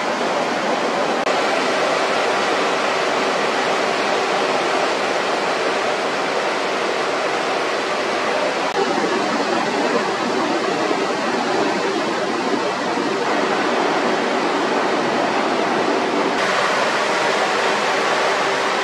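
Steady rushing noise of factory machinery or ventilation with a constant low hum, shifting slightly in tone a few times.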